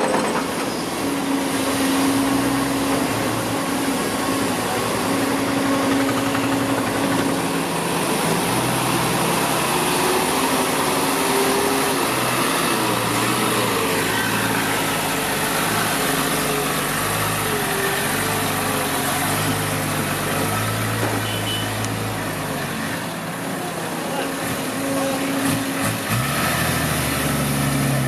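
Heavy diesel engines running: a loaded Hino Ranger dump truck driving across rough dirt, with earthmoving machinery working alongside, its engine note shifting up and down.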